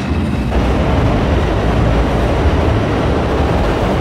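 New York City subway train moving along the platform, a loud steady rush of rail noise with a heavy low rumble that fills out about half a second in.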